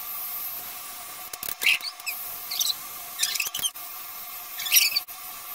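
Electric hair clippers buzzing steadily while shaving a head down to a buzz cut, with about four short high-pitched squeaks over the hum.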